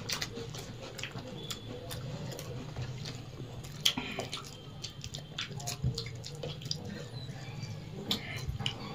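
Eating by hand from steel plates: scattered short clicks and wet smacks as fingers mix rice and egg curry and mouths chew, the loudest click about four seconds in, over a low steady hum.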